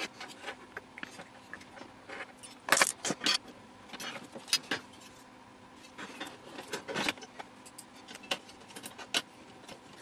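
Plastic CD loader mechanism and metal brackets being handled and fitted together: irregular clicks, knocks and light rattles of plastic and metal parts, with the loudest cluster about three seconds in and a scatter of small ticks near the end.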